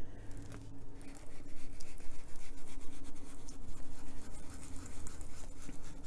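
Ink applicator rubbed in quick back-and-forth scrubbing strokes over a colouring-book page, working Distress ink into the paper. The strokes get louder and denser after about a second.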